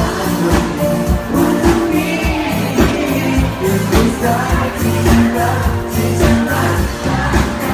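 Live pop band playing with a singer's vocals on top, over a steady drum beat and bass.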